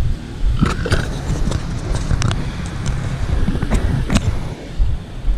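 Wind rumbling on the microphone of an action camera on a moving bicycle, with a handful of sharp clicks and rattles about a second in, around two seconds and again near four seconds.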